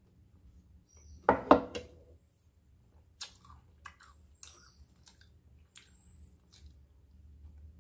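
A ceramic mug set down on a wooden table with two loud knocks about a second in, followed by small clicks and mouth sounds of eating, with a few faint high squeaks between them.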